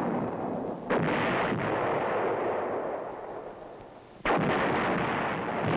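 Towed field howitzers firing: two sharp reports, about a second in and again about three seconds later, each followed by a long rumbling echo that slowly fades.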